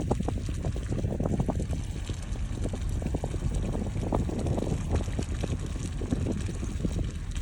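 Wind buffeting the microphone: a constant low rumble with irregular crackles.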